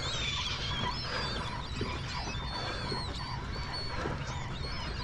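Many birds calling at once: a chatter of short, high chirps and whistles overlapping one another, over a steady low rumble.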